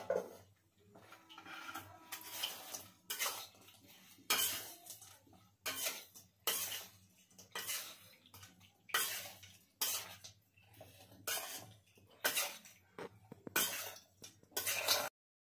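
Metal spatula scraping and knocking against a wok in repeated strokes, roughly one a second, as chilli gobi is stirred and tossed; the sound cuts off suddenly near the end.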